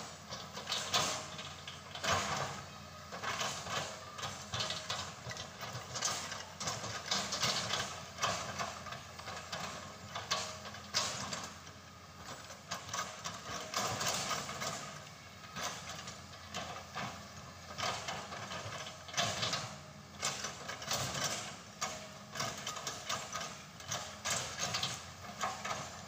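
Irregular mechanical clanking and knocking that goes on throughout in uneven clusters, with no steady engine note standing out.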